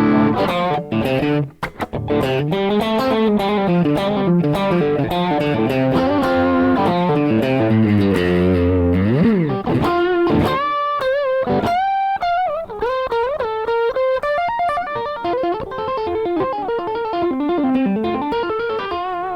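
Electric guitar played through a Rad Custom Shop Valkyrie overdrive pedal with the gain at 7.5, giving a classic-sounding drive. Fast lead runs with string bends and wide vibrato.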